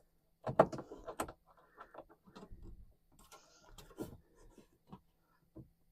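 Irregular metallic clicks and small knocks of bolts being fitted by hand to hold the new front door glass in place inside the door, with a sharp click about half a second in as the loudest.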